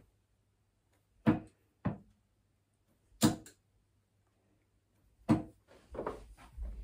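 23 g steel-tip darts thudding one after another into a bristle dartboard: short, sharp knocks, each a second or two apart, with quiet between the throws.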